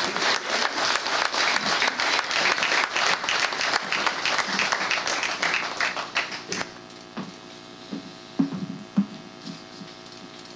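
Audience applauding with many hands clapping densely. The applause dies away about six or seven seconds in.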